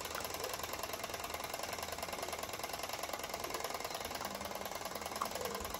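Clockwork timer of a pop-up shape-matching game (Perfection-style) ticking rapidly and evenly as it runs down while the pieces are being fitted.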